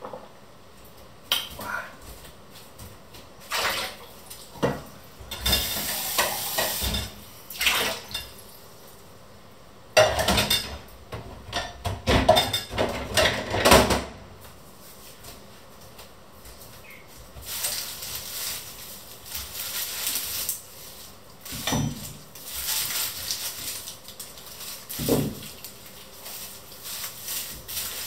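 Dishes, pots and utensils clattering and knocking in irregular bursts of kitchen work, loudest about ten to fourteen seconds in.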